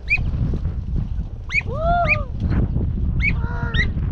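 Hunting hounds yelping and baying: a run of short, high yelps, with a longer arched bay about two seconds in.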